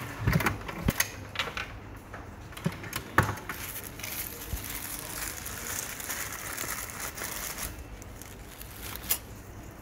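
Handling noise: a few light clicks and taps of small plastic parts, then a few seconds of rustling from a wrapper as a lanyard is handled, with one more sharp click near the end.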